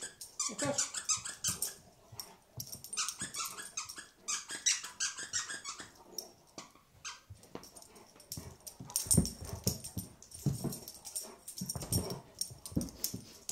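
A large dog chewing a squeaky toy: runs of rapid squeaks through the first five seconds, then low play growls and grunts as the toy is tugged and shaken.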